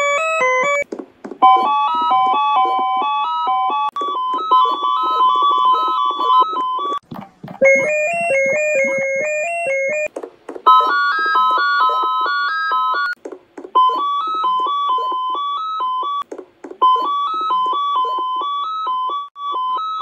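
A string of synthesized computer error sound effects: short electronic melodies of quick stepped beeping notes, each lasting about three seconds, with brief breaks between them, six or seven in all.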